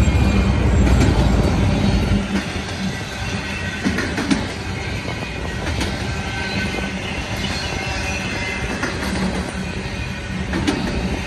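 Double-stack intermodal well cars rolling past close by: a steady rumble of steel wheels on rail, with scattered clicks as wheels cross rail joints and a faint wheel squeal. The deepest part of the rumble eases about two seconds in.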